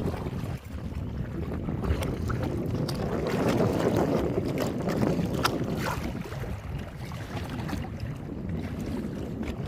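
Water splashing and sloshing with wind buffeting the microphone, and a few light knocks.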